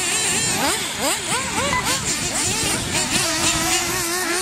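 Several small nitro engines of 1/8-scale RC off-road buggies revving up and down over and over, their pitches rising and falling and overlapping. About three seconds in, one holds a steady note for just over a second.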